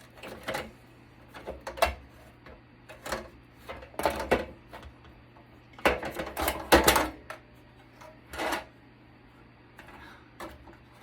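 Metal parts of a network switch clicking and clattering as it is pried apart by hand, in irregular knocks with louder bunches of clatter about four seconds in, around six to seven seconds and once more near eight and a half seconds.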